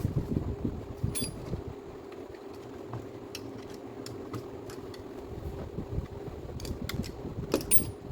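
Light metallic clicks and handling knocks from small parts being handled, over a steady low hum.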